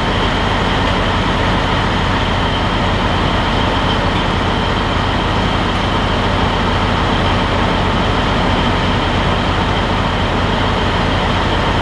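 A heavy truck's diesel engine running at a steady, unchanging speed: a constant drone with a faint steady whine above it.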